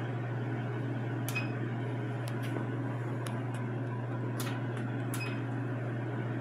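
Precision Matthews PM935TV milling machine running with a steady low hum, with a scattering of light, sharp clicks on top.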